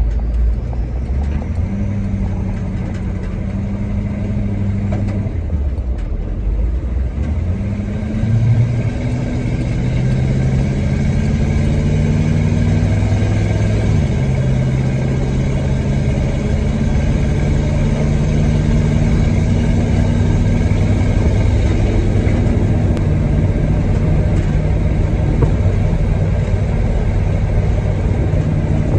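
Engine of an ex-US-military truck running while driving. The engine note dips and climbs a few times early on, as when shifting through gears, then holds steady and rises slowly as it pulls along.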